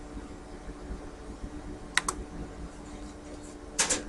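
Computer mouse clicking: a quick double click about two seconds in, then a short run of clicks near the end, over a steady low hum.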